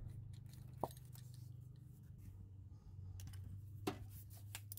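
Small plastic clicks and rattles of a coil-on-plug ignition coil and its electrical connector being unclipped and worked off the engine, with two sharper clicks about a second in and near the end. A low steady hum runs underneath.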